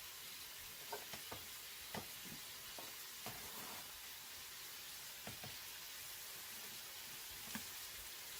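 Food sizzling in a pan, a steady quiet hiss, with a cooking utensil knocking against the pan several times as the dish is stirred.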